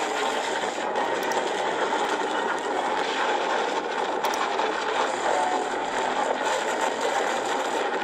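A giant stone boulder rolling through a rock tunnel, a steady grinding rush of noise.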